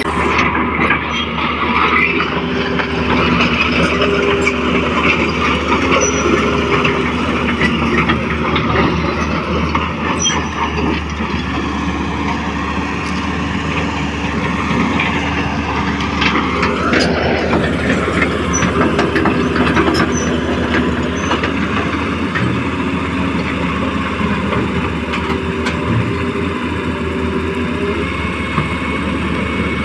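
Radio-controlled scale Hitachi excavator running steadily, its motors and hydraulic pump working as it digs, with a pitch that rises briefly about halfway through.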